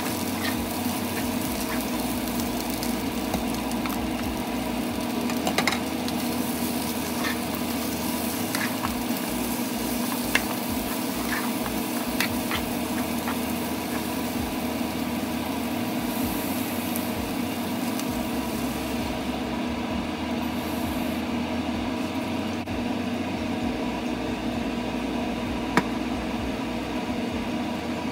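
Chicken and Thai eggplant sizzling in a nonstick frying pan while a wooden spatula stirs them, with scattered taps and scrapes of the spatula against the pan. The high sizzle thins out about two-thirds of the way through.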